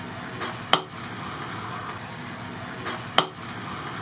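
A high-carbon spring-steel knife blade stabbed point-first into a wooden log twice, about two and a half seconds apart; each strike is a sharp knock followed by a brief high metallic ring from the blade.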